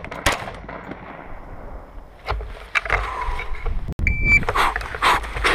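A rifle shot just after the start, then a couple of lighter knocks. About four seconds in a shot timer gives one short beep, and rifle shots follow in quick succession, about two a second.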